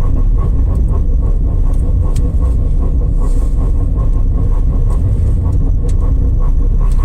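A motor vehicle running with a loud, steady low rumble and a faint steady tone above it, the noise singled out as abnormal.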